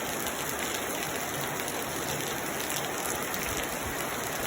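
Heavy rain falling steadily, a dense even patter of raindrops on the ground and surfaces.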